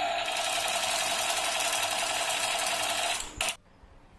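Battery-powered toy submachine gun firing its electronic machine-gun sound, a continuous rapid rattle. Near the end it breaks off, gives one more short burst and then stops.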